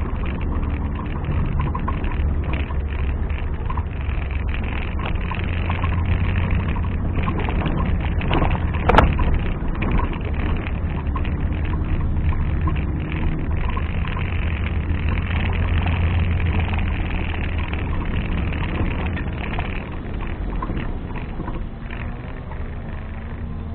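Off-road 4x4's engine running under varying load, rising and easing, with a single sharp knock about nine seconds in.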